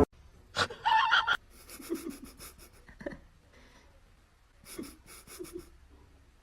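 Short bursts of breathy panting, coming in two spells with a pause between them.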